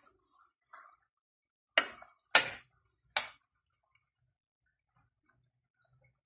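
Kitchenware clinking against a metal cooking pot as vegetables are handled in it: three sharp clinks over about a second and a half, starting a couple of seconds in, and a faint fourth.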